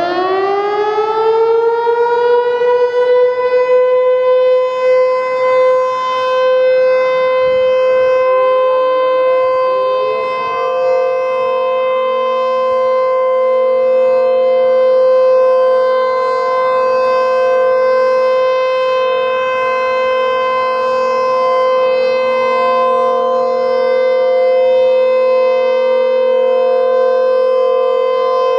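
ASC T-121 outdoor warning siren sounding a test: it finishes winding up to full pitch in the first couple of seconds, then holds a steady, loud wail. About ten seconds in, a second, slightly higher tone slides in and the sound becomes a held chord.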